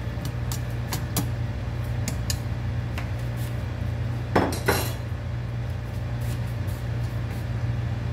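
Metal slotted ladle clinking against a stainless steel soup pot while stirring, with a few sharp taps in the first three seconds and two louder knocks about four and a half seconds in, over a steady low hum.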